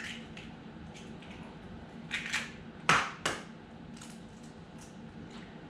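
Eggs being tapped and cracked open on the rim of a bowl: four sharp knocks and cracks between about two and three and a half seconds in, with faint clinks of kitchenware between.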